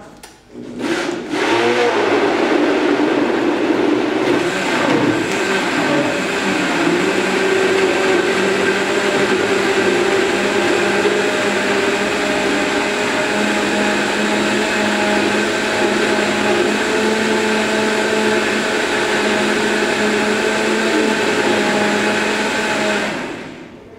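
Countertop blender running, puréeing cucumber and leafy greens into a green smoothie. It starts about a second in, and its pitch wavers for the first few seconds as the chunks break up. It then runs steady and cuts off about a second before the end.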